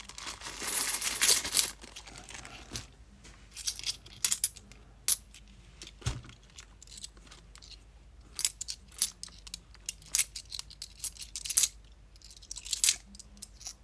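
A brief crinkle of a plastic coin bag, then bimetallic £2 coins clinking against each other in irregular clicks as they are thumbed one at a time through a small stack held in the hand.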